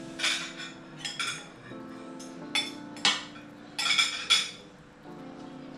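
Metal spoons clinking and scraping against ceramic bowls and plates as food is served, a handful of short clinks with the loudest clusters about three and four seconds in. Soft background music plays under it.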